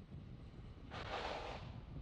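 A short hiss of gas venting from the fuelled Falcon 9 on the pad, starting sharply about a second in and fading out within a second, over a steady low rumble of wind on the microphone.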